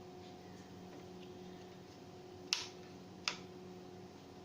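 Two short, sharp clicks, one about two and a half seconds in and one under a second later, over a faint steady hum.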